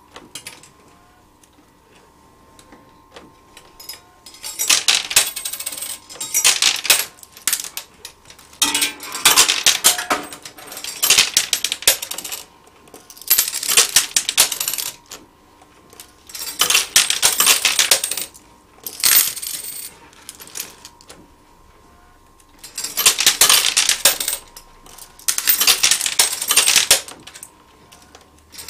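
Jungle Jive coin pusher arcade machine running, its pusher shoving piles of copper coins so that they slide and clink in repeated clattering bursts of a second or so, roughly every two seconds, from about four seconds in. A faint steady tone hums under it.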